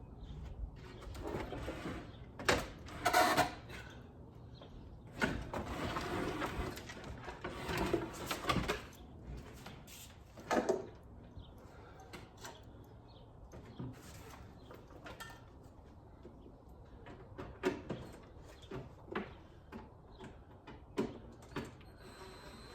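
Knocks, bumps and scraping as a built-in cabinet is worked loose and shifted out of a camper interior: irregular thumps, a louder stretch of scraping a few seconds long just before the middle, and scattered lighter knocks after it.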